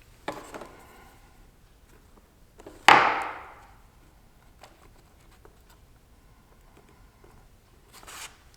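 Handling noises on a workbench: a few light clicks, then about three seconds in one sharp knock with a short ringing tail, as of a hard object set down, and a brief soft rustle near the end.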